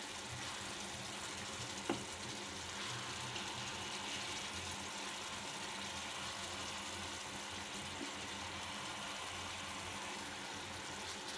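Thick, reduced fish curry bubbling and sizzling in a pan as it simmers down, with a wooden spatula moving through it. A single light knock about two seconds in.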